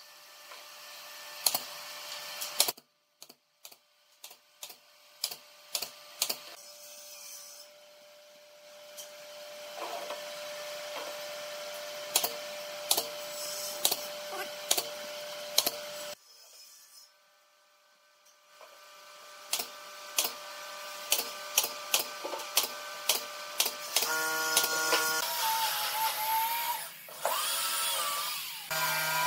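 JOK pneumatic brad nailer firing nails one at a time into wooden edge trim, a long series of sharp snaps about a second apart. Near the end a corded handheld electric power tool starts and runs with a steady, wavering motor whine.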